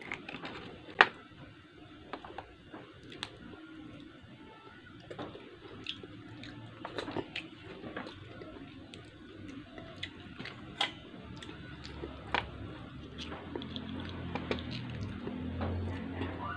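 Close-miked eating by hand: soft wet chewing and mouth smacks with scattered sharp clicks as mussels are picked apart and eaten. One loud click about a second in, and a low hum near the end.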